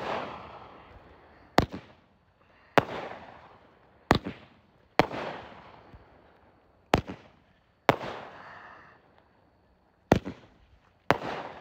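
Multi-shot consumer fireworks cake firing: about nine sharp bangs at uneven gaps of one to two seconds, each trailing off in a fading echo.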